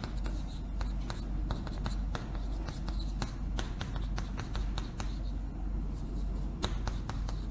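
Chalk tapping and scraping on a blackboard as characters are written, in irregular runs of short sharp taps with a brief lull about two thirds of the way through, over a steady low hum.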